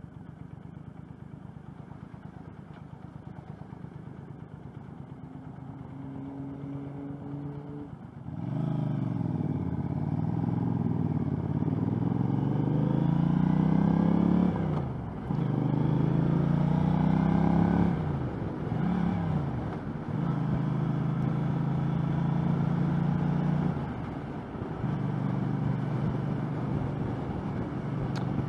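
2013 Triumph America's 865cc parallel-twin engine, quieter at first. About eight seconds in it pulls away with rising revs, dipping briefly at each gear change, then settles to a steady cruise with short lulls near the end.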